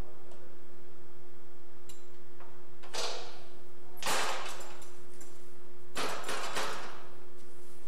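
Panic-bar exit device on a steel test door being worked by hand: sharp metallic clacks with short ringing tails, one about three seconds in, a louder one about a second later, and a quick cluster of clacks around six seconds.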